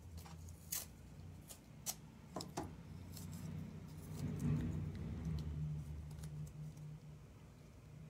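Masking tape being handled on a canvas: a few soft clicks and rustles in the first three seconds as tape is pulled from the roll and pressed down, over a low steady hum.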